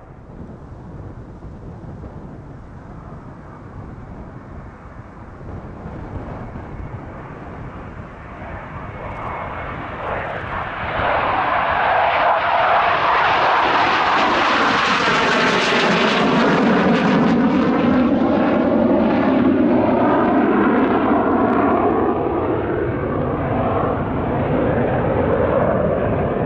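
Panavia Tornado jet flying a low pass with its landing gear down, the noise of its twin RB199 turbofans. The noise grows over the first ten seconds, turns loud about eleven seconds in, and stays loud, with a swirling, shifting tone as the jet passes and moves away.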